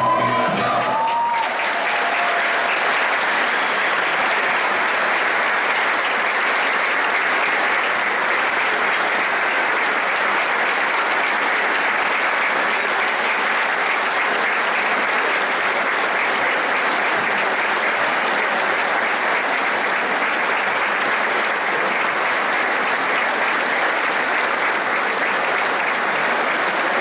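Audience applauding steadily, taking over as the last sung note of a folk choir dies away about a second in.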